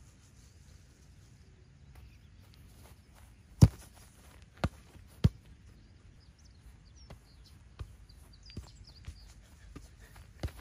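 A soccer ball being kicked on grass: three sharp thuds about a second apart in the middle, then a string of lighter touches and running footsteps toward the end. Birds chirp faintly in the background.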